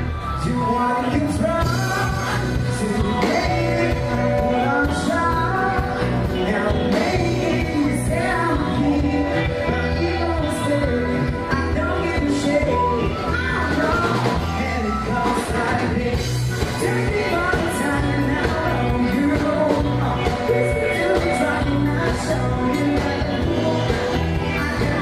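A live band playing a song over a steady beat, with a singer singing into a microphone.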